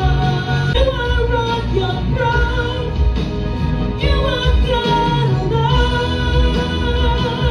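A woman singing a praise-and-worship song over a backing track with a heavy bass.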